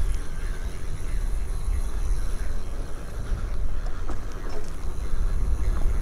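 An electric bike being ridden along: a steady low rumble of wind buffeting the microphone and tyres running on the ground.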